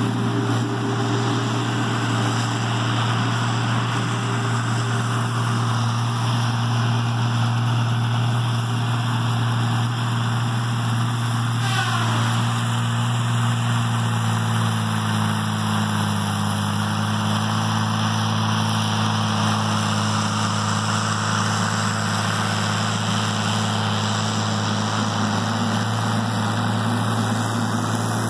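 Diesel engine of a Tigercat 720E wheeled feller buncher running steadily as the machine works the stand, a strong low drone throughout. Its pitch eases down a little after the middle, with a brief rising sweep about twelve seconds in.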